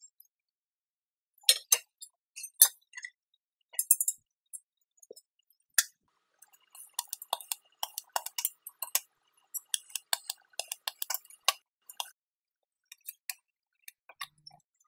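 Steel parts clinking against each other and the steel bench as they are set in place, then a quick run of ticks and clicks over a faint steady high tone as a TIG torch tack-welds a square steel plate and tube onto rectangular steel tubing.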